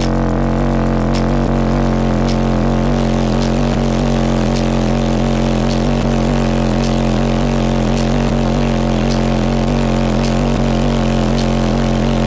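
Competition car-audio subwoofer system playing deep bass at near full power, heard from inside the truck's cab as a loud, steady, unbroken bass drone.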